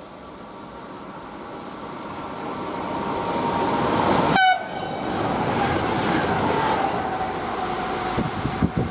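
ED74 electric multiple unit approaching and passing at speed, a rising rush of wheels on rail with a steady high tone over it. The sound breaks off abruptly about halfway through, then comes back loud as the train goes by, with a few irregular thumps near the end.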